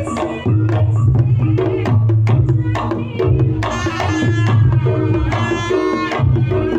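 Reog Ponorogo gamelan music through a sound system: rapid kendang drum strokes over deep, booming gong tones. From about halfway a high, wavering melody line joins on top.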